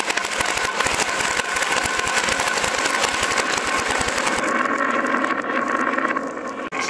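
Dozens of glass marbles rolling down zigzag grooves carved in pine boards, a dense continuous rattle of fast clicks as they knock against each other and the wood.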